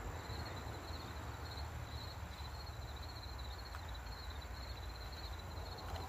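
Outdoor ambience: a steady low rumble with an insect chirping in a high, evenly repeating pulse.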